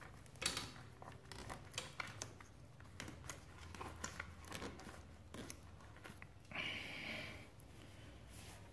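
Faint handling noises of a plastic fork-seal cleaning tool and a hand working on a motorcycle's chromed fork tube: scattered small clicks and light knocks, a sharper knock about half a second in, and a brief rustle about seven seconds in.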